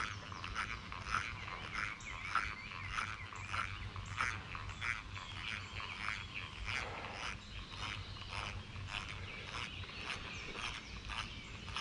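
A 1950s Luxor spinning reel squeaking rhythmically as its handle is cranked, about two to three short, high chirps a second. The squeaking sounds like spring peepers.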